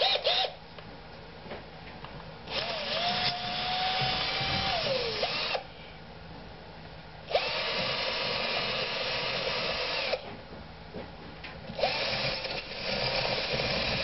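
Cordless drill driven in three spells of about three seconds each, its motor winding up, holding speed and winding down each time, after a few quick trigger blips at the start. A bit is being run into a drain-plug hole of a cast-iron Mercruiser 4.3 engine part to clear out the rust and scale deposits blocking it.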